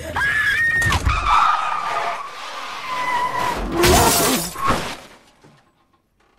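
Car crash: a woman screams as the car skids, with heavy impacts about a second in. The loudest crash of metal and shattering window glass comes about four seconds in, then it dies away to near silence.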